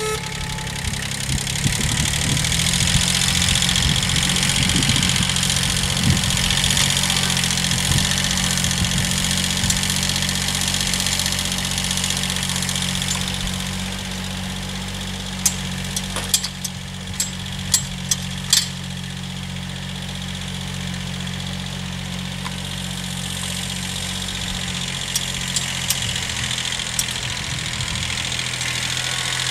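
Kubota B7001D tractor's small two-cylinder diesel engine running steadily as the tractor drives across the field, a little fainter midway and growing louder again near the end. A few sharp clicks come a little past the middle.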